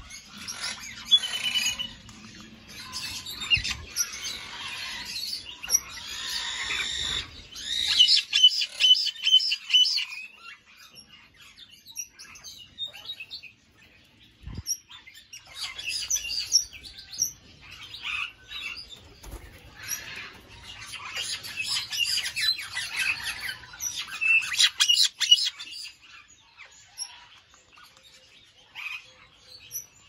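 Many aviary parrots and smaller birds chirping and chattering together, in dense bursts with quieter gaps between. There is one short knock about halfway through.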